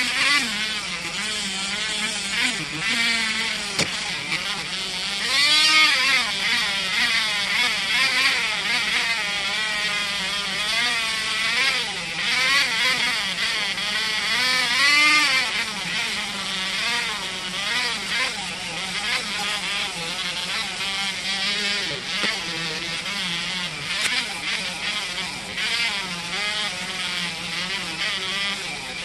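Small high-speed rotary tool with an abrasive wheel running and grinding against the steel blade of an old putty knife, taking off built-up grime. Its motor whine wavers up and down in pitch as the wheel is pressed on and eased off, over a steady grinding hiss.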